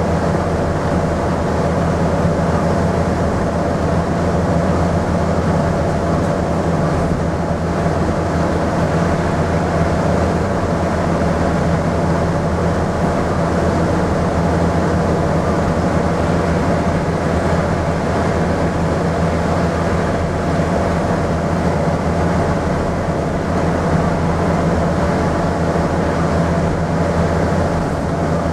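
Scania N230UD double-decker bus's five-cylinder diesel engine working hard at a steady high speed, heard inside the passenger saloon. The engine note holds steady over continuous road and tyre noise.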